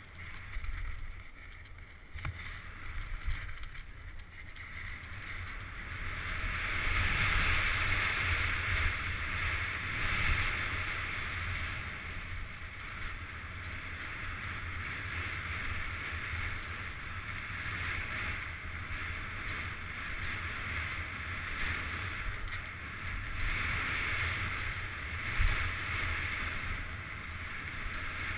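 Wind rushing over a helmet-mounted camera on a mountain bike riding fast down a dirt trail, with a low rumble and scattered rattles from the tyres and bike; the rush swells louder about a quarter of the way in, and a sharp knock comes near the end.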